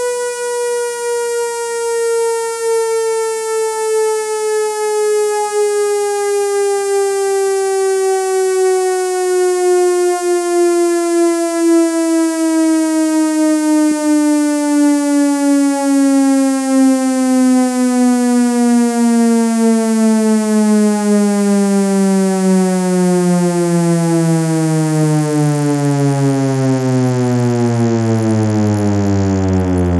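Synthesized ACA Hurricane siren, 12-port rotor sound, winding down: one rich, buzzy tone whose pitch falls slowly and steadily throughout, from a mid tone to a low drone.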